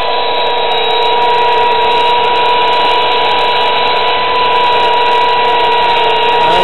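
Corded electric chainsaw running steadily with an even, high whine that holds one pitch throughout.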